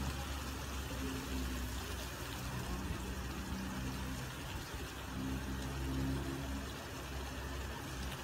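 Heavy rain pouring down on a street, a steady hiss, with cars driving by on the wet road; their low engine hum swells at the start and again about five seconds in.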